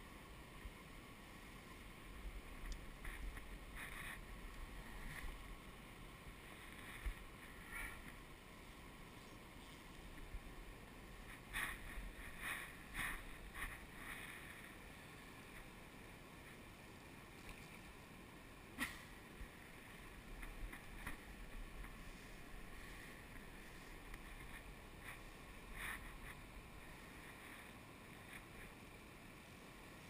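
Faint, steady rush of running water from a small river waterfall, with scattered short splashes and knocks, a cluster of them about twelve seconds in.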